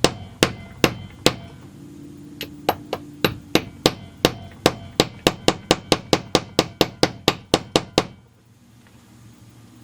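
Hammer tapping on a 13 mm deep socket used as a driver to seat an aftermarket crankshaft seal into a chainsaw crankcase. Three light taps, a short pause, then a steady run of quick taps at about three or four a second that stops about eight seconds in.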